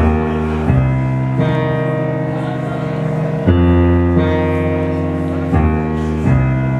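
A live post-punk band playing sustained chords over a deep bass. The chords shift every second or two.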